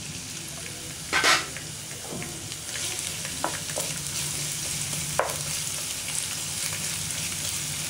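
Chopped ginger, garlic and green chillies sizzling in hot oil in a nonstick pan while a wooden spatula stirs them. There is a brief loud rush about a second in, then a steady sizzle with a few sharp taps of the spatula on the pan.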